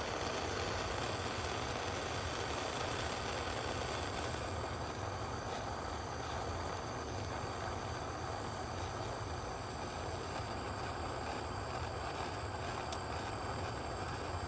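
Propane torch burning with a steady hiss, heating a spoke nipple on a motorcycle wheel rim to loosen it.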